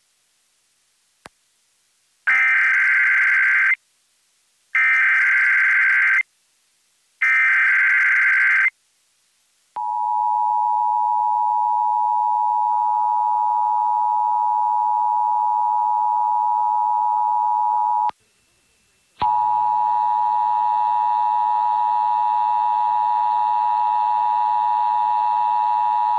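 Emergency Alert System test on FM radio: three short, identical bursts of screeching SAME header data, then the steady two-tone EAS attention signal for about eight seconds. After a one-second break the attention signal starts again, this time with a low hum and noise under it.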